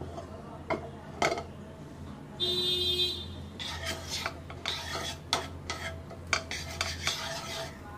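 Wooden spatula scraping and rubbing melting butter across a non-stick frying pan in repeated strokes, starting about three and a half seconds in. Before that there are a couple of light knocks and, the loudest sound, a brief shrill tone about two and a half seconds in.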